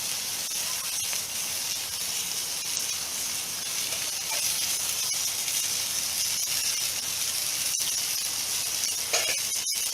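Burger patty frying in a mess kit pan over a fire, a steady sizzle that cuts out for an instant near the end.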